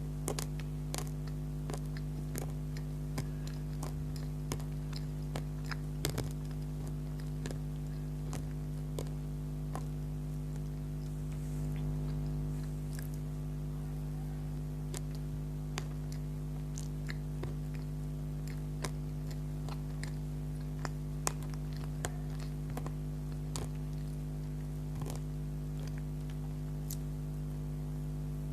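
Soft wet chewing and mouth clicks from someone eating soft bakery treats, scattered as irregular small clicks over a steady low electrical hum.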